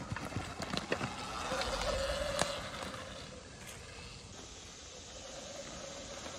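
Sur-Ron Light Bee X electric dirt bike riding along a dirt trail: the faint whine of its electric motor and chain drive sets in about a second and a half in and holds fairly steady, wavering slightly with the throttle. A few sharp clicks come in the first second.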